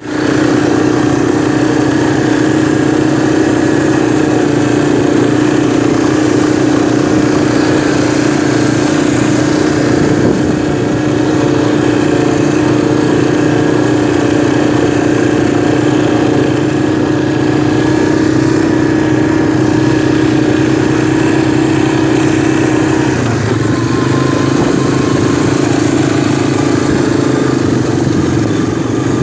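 Three-wheeler ATV engine running steadily at a constant speed, changing pitch slightly a little past the middle.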